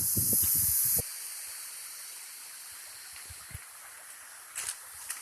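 Rushing water of a waterfall as a steady hiss. For the first second it is loud, with low bumps on the microphone, then it cuts abruptly to a quieter, steadier rush. A few faint clicks come near the end.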